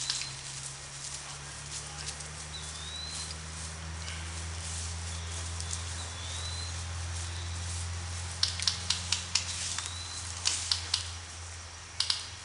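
Quick clusters of sharp clicks in the second half, typical of airsoft guns firing, over a steady low hum, with a bird's short rising chirp every few seconds.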